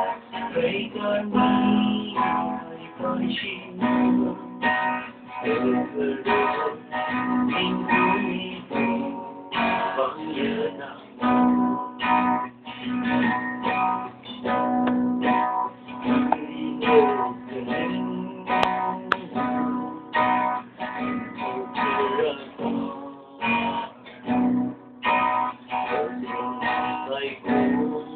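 Acoustic guitar strummed in a steady rhythm, with a man singing along. The sound is thin, phone quality, with nothing above the low treble.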